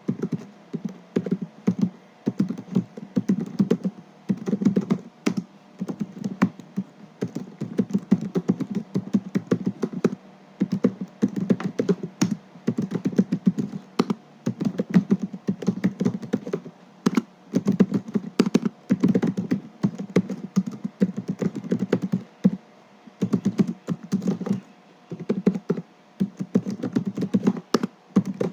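Typing on a laptop keyboard: quick, irregular key clicks in runs of several seconds, broken by short pauses.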